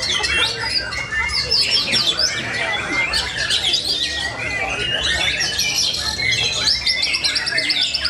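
White-rumped shamas singing in a contest: a dense, unbroken stream of varied whistles, chatters and sweeps from several birds at once, with a long, fast repeated trill in the second half.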